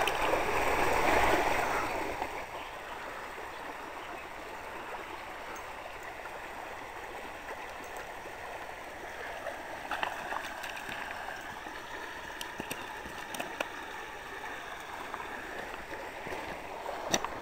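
Shallow stream water running and gurgling over rocks, with louder splashing in the first couple of seconds as a hooked rainbow trout stirs the surface. A few small clicks and knocks come in over the steady water sound later on.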